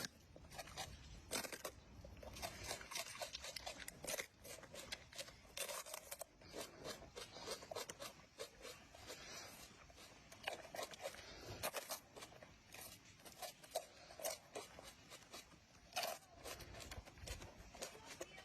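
Food being handled and eaten up close: irregular crunching and crackling clicks throughout, with small scraping and rustling sounds.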